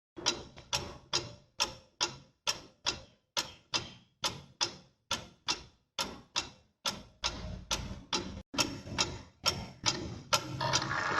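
Pendulum clock ticking steadily, a little over two ticks a second. Music starts to come in near the end.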